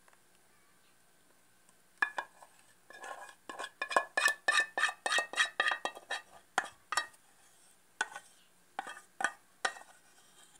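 A spatula scraping and clinking against a metal saucepan as cooked custard is scraped out of the pan. After about two quiet seconds comes a quick run of clinks, about four or five a second, thinning to a few separate clinks near the end.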